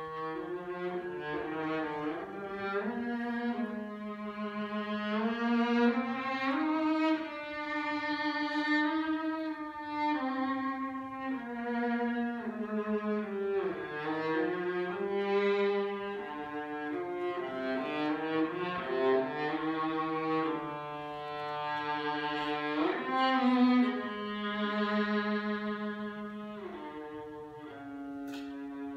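A single viola playing a slow melody alone, bowed with long held notes that slide smoothly from one to the next.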